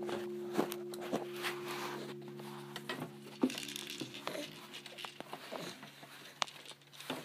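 Acoustic guitar strings ringing on and slowly dying away over about five seconds, with scattered taps and knocks as a baby's hands bat at the strings and body.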